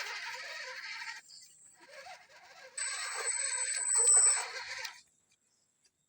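RC crawler's electric motor and gears whining as it drives, in two bursts, the second starting about three seconds in and louder. The sound cuts out completely about five seconds in.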